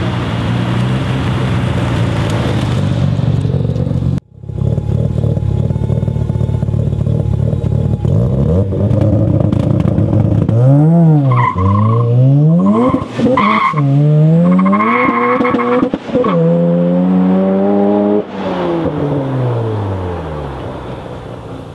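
Mazda REPU pickup's rotary engine: running hard for a few seconds, then after a cut idling steadily. About halfway in it takes a quick rev and launches, the note climbing several times with drops between like upshifts, holding high, then falling away toward the end.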